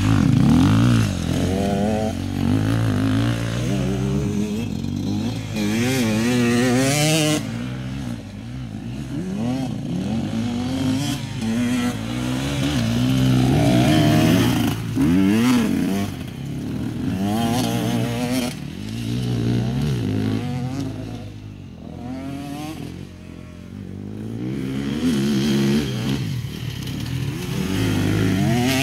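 Enduro dirt bike engines revving, the pitch climbing and dropping over and over as the riders open and close the throttle through the turns. The sound swells as a bike comes close and fades as it rides away.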